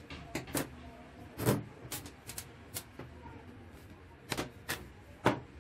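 Sharp clicks and knocks from handling an angle grinder and working a small screwdriver on its plastic housing, about ten in all, the loudest knock about a second and a half in.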